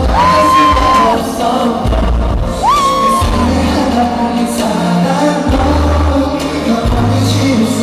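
Live pop music with singing, played loud through a concert sound system and heard from the audience, over a heavy bass pulse. Two long high vocal notes are held, the second sliding up into its note about three seconds in.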